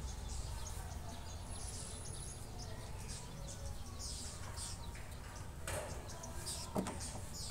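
Soft rustling of a fabric waistband strip being folded and smoothed flat by hand, over a low steady hum.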